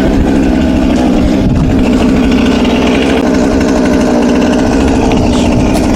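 Husqvarna 455 Rancher two-stroke chainsaw running steadily at idle.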